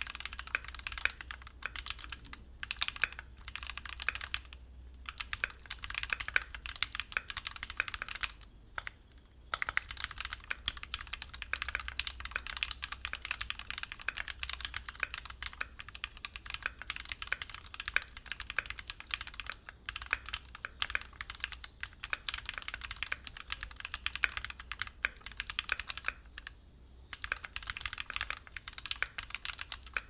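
Continuous fast typing on a Keychron Q4 60% aluminium mechanical keyboard with tactile Gateron G Pro Brown switches and Keychron OSA double-shot PBT keycaps, unmodded: a dense run of keystroke clacks, broken by a few short pauses.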